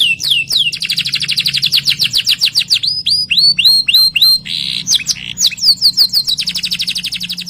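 Domestic canary singing: fast rolling trills of rapidly repeated notes, mixed with downward-sliding whistles and a short buzzy note about four and a half seconds in.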